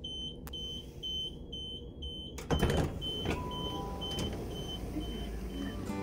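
Short high electronic beeps repeating about twice a second over a steady low rumble. About two and a half seconds in there is a loud clattering knock, after which the beeps carry on fainter.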